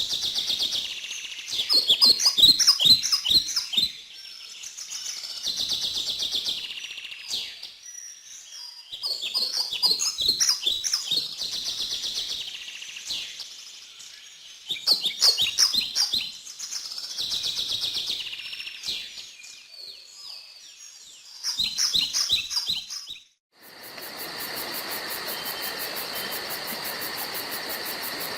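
Forest birds singing: high chirping phrases and rapid chattering trills that recur every few seconds. Near the end it cuts off abruptly to a steady hiss with a high, fast-pulsing trill.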